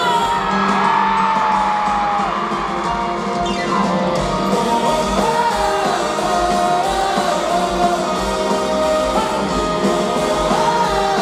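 Live band music with singing, including a long held sung note early on, over a full band.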